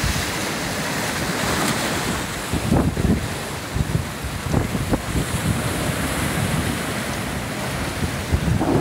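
Ocean surf breaking and washing in foam over black lava rocks: a steady, rushing wash of water, with wind buffeting the microphone in low rumbles.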